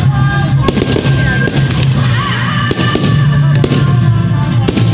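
Fireworks going off in a rapid series of bangs and crackles, over loud music played with the display.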